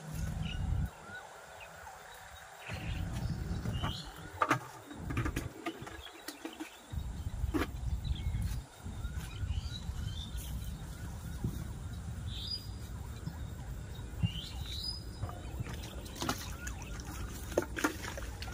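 Outdoor pond-side ambience: a low rumble that cuts in and out, scattered sharp clicks and knocks, and a few short high bird chirps.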